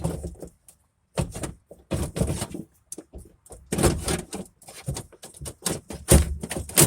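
Irregular metal clunks and rattles, with the loudest knocks about four seconds in, six seconds in and near the end, as a window regulator assembly is worked into a pickup's door shell.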